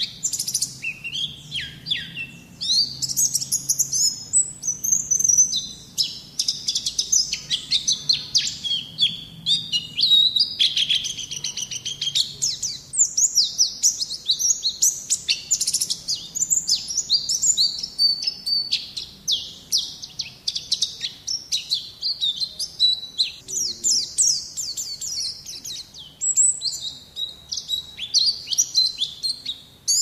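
White-eye (Zosterops) singing: a continuous, fast run of high chirps and twitters with hardly a pause.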